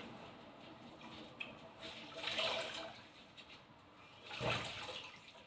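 Water sloshing and dripping in a mop bucket as gloved hands rinse and wring out in it, with two louder splashes about two and a half and four and a half seconds in.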